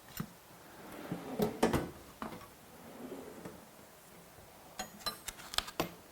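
Scattered light knocks and metallic clinks from a car seat's metal rail parts being handled: a cluster about a second and a half in, and another near the end with a brief ring.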